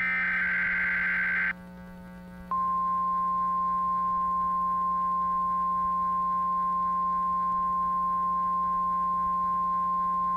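The last of the Emergency Alert System's SAME digital header bursts, a data warble, which stops about a second and a half in. After a one-second gap comes the NOAA Weather Radio 1050 Hz warning alarm tone, a single steady high beep held for about eight seconds, which signals that a warning, here a tornado warning, is about to be read. A low steady hum lies under both.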